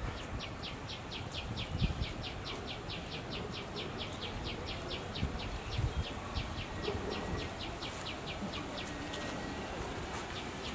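A high, chirping animal call repeated evenly about four times a second, pausing briefly near the end before it starts again. A few low thumps sound under it.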